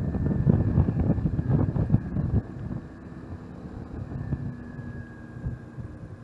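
Wind buffeting the microphone on a moving motorbike, heavy gusts for the first two and a half seconds, then easing to a steadier rush with a faint steady engine hum and whine underneath.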